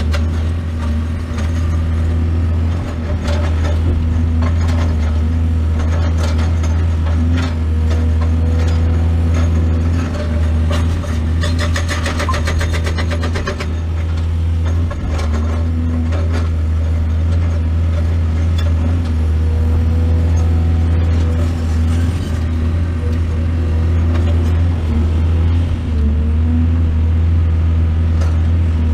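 Excavator's diesel engine running steadily with a deep drone, with scattered knocks and clanks.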